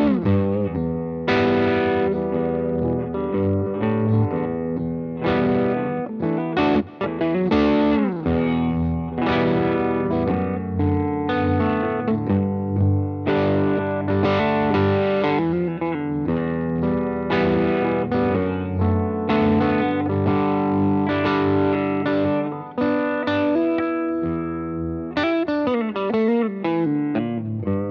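Electric guitar, a Fender Telecaster, played through an EarthQuaker Devices The Depths analog optical vibe pedal set for a subtle vibrato swirl. Its amp tone comes from a Universal Audio Dream '65 pedal, with added room ambience and echo. The guitar plays chords and melodic lines, with a sliding note about seven seconds in and another near the end.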